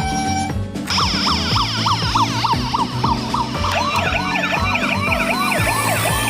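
Electronic toy siren wailing in quick rising-and-falling sweeps, about two or three a second, over a tinny tune with a steady beat. About halfway through the siren changes to a different warbling pattern.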